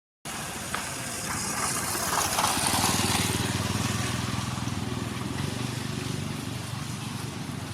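An engine running steadily with a low, pulsing hum, under a broad outdoor hiss that swells briefly a couple of seconds in.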